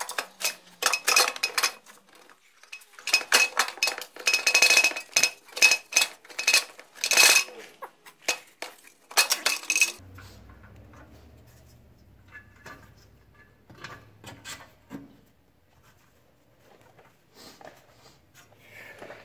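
Metal exhaust parts of a snowmobile clinking and rattling against each other and the chassis as the exhaust is worked back into place, with a ringing metallic ping among the knocks. About halfway through the clatter stops, leaving only scattered faint handling knocks.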